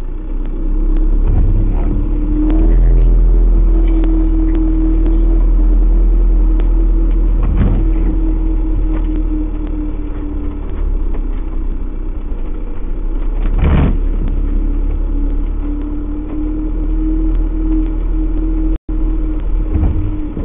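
Motorhome engine running under load as it drives across soft, waterlogged grass, heard from inside the cab through a dashcam's microphone: a steady low rumble with a held hum. Two brief knocks, about eight and fourteen seconds in, and a few short dropouts in the sound near the end.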